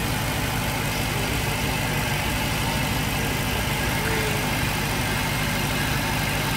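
Dodge Charger Hellcat's supercharged 6.2-litre HEMI V8 idling steadily after a long warm-up.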